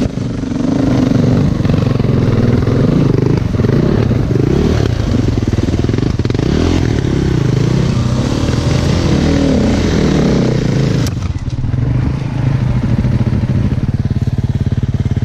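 Enduro dirt bike engine ridden on rough forest single-track, its pitch rising and falling with repeated throttle blips. About eleven seconds in there is a sharp click, and after it the engine holds a steadier, lower note.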